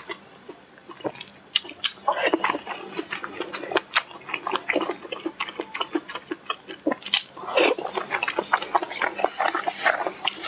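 Close-miked eating sounds of someone eating fast: a quick, irregular run of wet chewing clicks and lip smacks, with a louder slurp-like burst a little past halfway.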